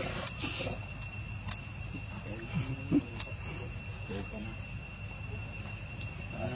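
An insect, likely a cricket, trilling steadily on one high pitch, with a few faint short vocal sounds and a couple of light clicks.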